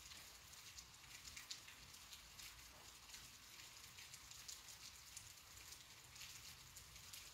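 Faint steady rain: a soft hiss of falling rain with many small scattered drop ticks.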